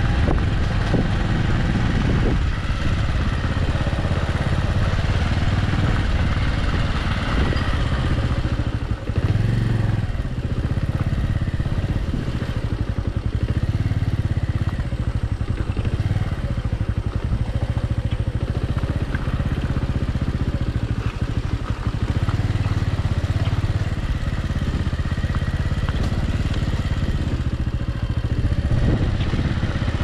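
Motor vehicle on the move: a steady engine drone with a rough, fluctuating low rumble of road and wind noise.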